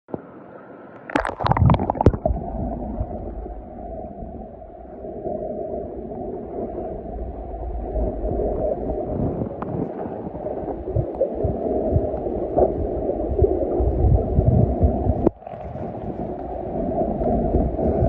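A splash about a second in as the camera goes under, then the muffled, steady gurgling and rushing of water heard with the microphone submerged, with low rumbles.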